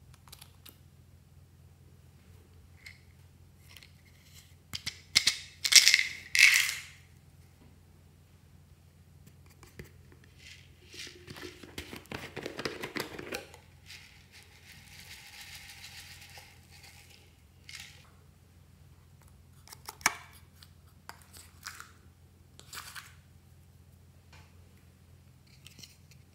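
Slime add-ins being shaken, tapped and poured from small plastic bottles and containers into glass dishes: scattered clicks and taps, two loud shaking rattles about six seconds in, then a rattling pour followed by a softer hissing pour in the middle.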